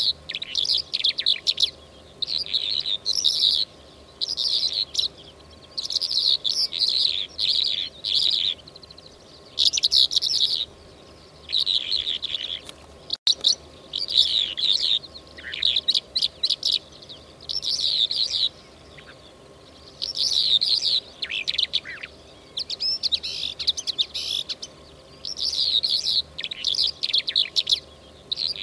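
Lark song: phrases of rapid chirps and trills about a second long, repeated every second or two with short pauses between, over a faint steady hum.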